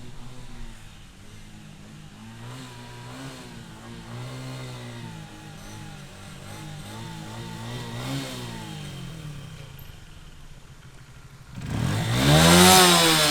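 Motorcycle engine running at a distance, its pitch rising and falling as the throttle is opened and eased. Near the end it comes close and passes by much louder, the pitch sweeping up and then down.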